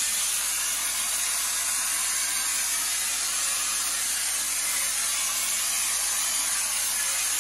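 CO2-driven EZ-Pro texture spray gun hissing steadily as compressed carbon dioxide blows drywall texture out of its bag through the nozzle.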